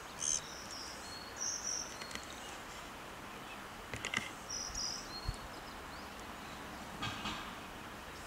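Countryside outdoor ambience: a steady hiss with short high chirps heard three times and a few faint falling whistles, plus a few light ticks near the middle and toward the end.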